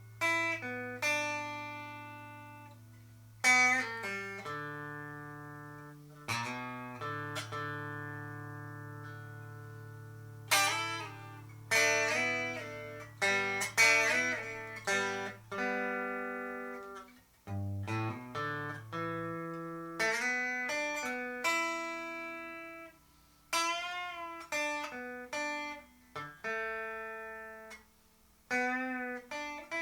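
Squier 40th Anniversary Telecaster with both pickups selected, played straight into a Sound City Master Lead 50 amplifier with no reverb. Single notes and chords are picked and left to ring and decay, and a few notes are bent or shaken with vibrato.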